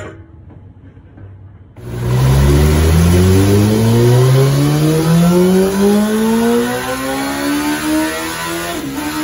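A brief knock, then about two seconds in a Kawasaki ZX14R's 1441 cc inline-four, breathing through a pair of Two Brothers slip-on mufflers, comes in loud on a wide-open-throttle dyno pull. Its pitch climbs steadily as the revs rise under load, then flattens and dips briefly near the end.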